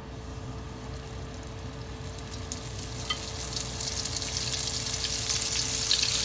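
Flour-coated octopus tentacles sizzling as they are lowered into hot oil in a frying pan for deep-frying. The frying hiss starts faint and grows steadily louder as more pieces go into the oil.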